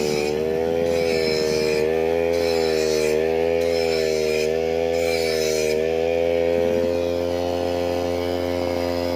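Motorised brush cutter (grass-cutting machine) engine running steadily, its pitch wavering gently up and down as it works, then holding an even note from about six seconds in. A higher hiss comes and goes several times over the first six seconds.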